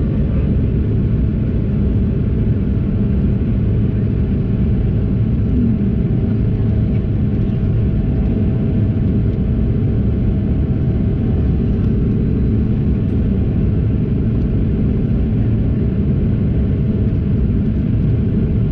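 Steady cabin roar of a Bombardier CRJ-200 climbing after takeoff: the rear-mounted General Electric CF34 turbofans and rushing air heard from inside the cabin, a deep even rumble with a faint steady hum above it.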